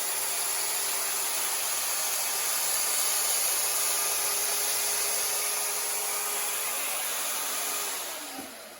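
A power tool steadily cutting steel for subframe-connector pieces, a continuous hiss with a faint whine under it that fades out near the end.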